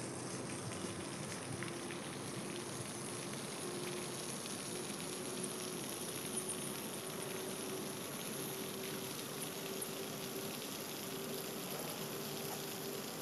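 Steady, fine fizzing hiss of water with a faint, wavering hum underneath.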